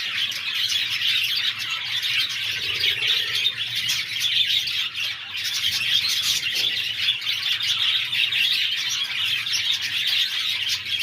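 Several budgerigars chattering and chirping together in a continuous, busy twitter, with no pauses.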